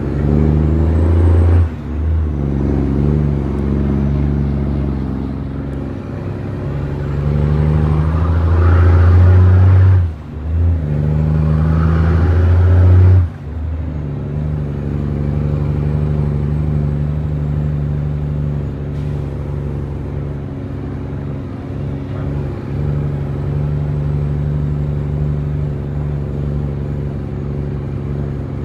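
Heavy truck's diesel engine heard from inside the cab, pulling hard under load. The sound cuts out briefly and comes back three times in the first half, as with gear changes, then runs steadily.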